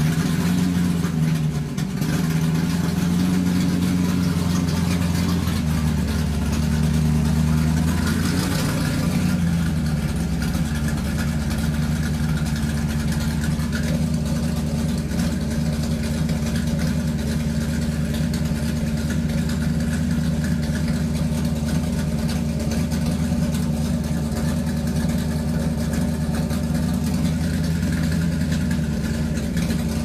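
A motor running loudly with a steady, pitched hum. Its note shifts between about six and ten seconds in, then holds steady.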